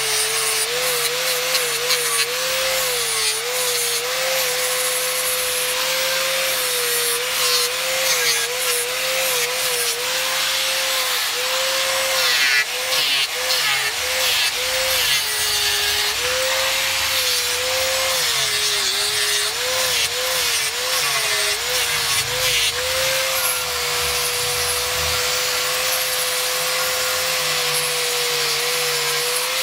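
Electric angle grinder with a flap disc sanding down a wooden knife handle. A steady high motor whine drops in pitch each time the disc is pressed into the wood, over the gritty hiss of abrasive on wood. The whine runs steady without dips near the end.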